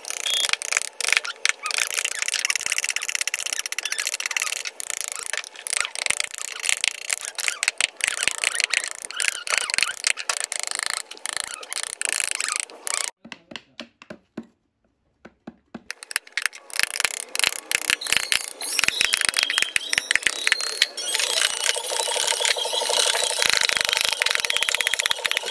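Wooden mallet striking a hand carving gouge into a wood panel, a rapid run of sharp taps with a pause of about three seconds about halfway through.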